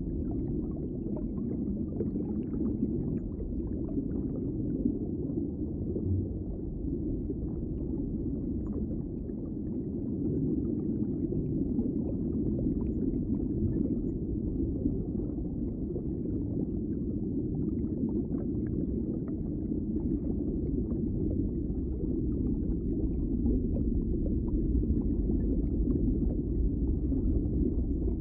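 Underwater ambience: a steady, muffled low rumble of water with faint scattered crackles.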